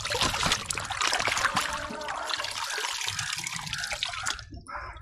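Water pouring and splashing off a plastic toy airliner dipped in and lifted out of a tank of water, with many small splashes and drips. It stops about four seconds in.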